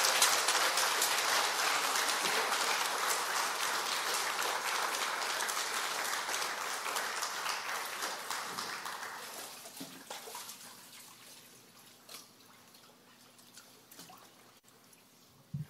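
Congregation applauding, a dense clatter of many hands that slowly dies away over the first nine or ten seconds. A short low thump comes just at the end.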